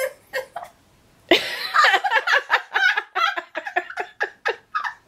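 A woman laughing hard and helplessly: a few short gasps, a brief pause, then a long run of breathy laughing bursts at about four a second.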